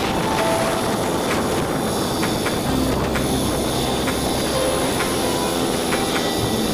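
Single-cylinder Yamaha SR motorcycle running steadily on the road, with wind rushing over the microphone.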